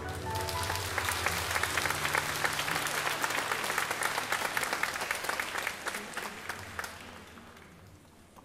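Theatre audience applauding. The ensemble's last sustained notes die away in the first moment, then the clapping swells and fades out over the last couple of seconds.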